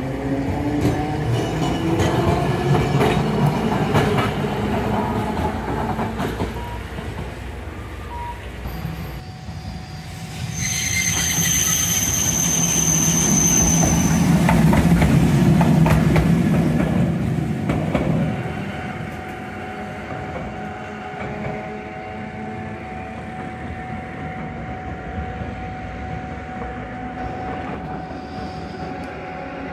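Randen (Keifuku Electric Railroad) tram cars running. Near the start a motor whine rises in pitch. About halfway through, a tram passes close by, loudest for several seconds, with a steady high wheel squeal lasting about three seconds. After that comes quieter, steady running.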